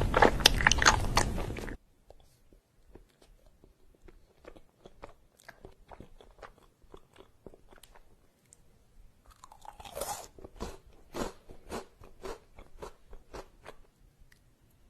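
Close-up crunching and chewing of crisp food. Loud, dense crunching stops abruptly about two seconds in, leaving faint, sparse chewing clicks. About ten seconds in there is a louder bite and a run of sharp crunches.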